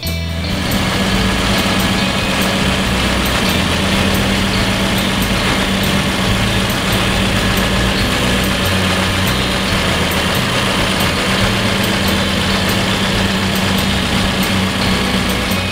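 1948 Hillman Minx's rebuilt 72.3 cubic inch four-cylinder engine idling steadily with the bonnet open.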